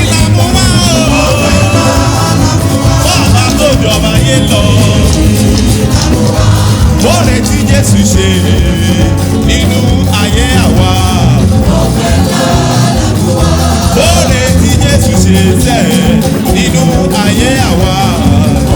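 Loud, steady church band music with percussion and singing: a Yoruba gospel anthem.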